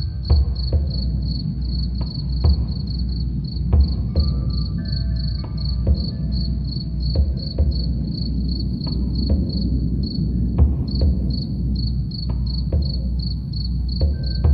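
Crickets chirping steadily, about three chirps a second, over soft low drumming and scattered wind-chime notes.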